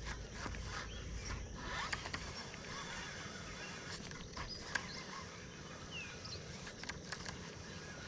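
Outdoor pond ambience with a few short bird chirps and scattered sharp clicks, one louder than the rest about five seconds in.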